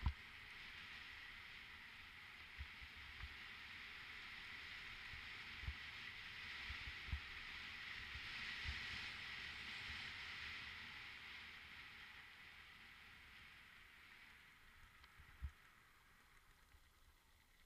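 Mountain bike rolling down a trail, heard from a helmet-mounted camera: a steady rushing hiss that swells about halfway through and fades toward the end, with scattered dull knocks as the bike and helmet jolt over bumps.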